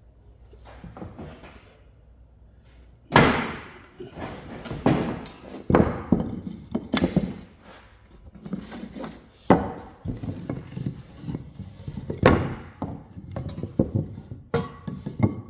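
Wooden knocks and thuds of workpieces being handled and tapped at a woodworking bench. There are several sharp, loud knocks a few seconds apart, with softer clatter between them; the first half-dozen seconds are quieter.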